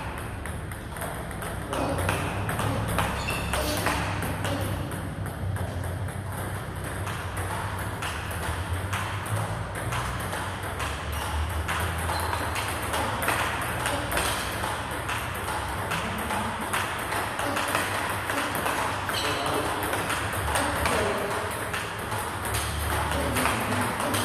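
Table tennis rally: a quick, steady run of clicks as the ball is struck on the bats and bounces on the table. One bat is a Butterfly Fan Zhendong ALC blade with Dignics 09C rubbers, and balls from a neighbouring table add extra clicks. A steady low hum runs underneath.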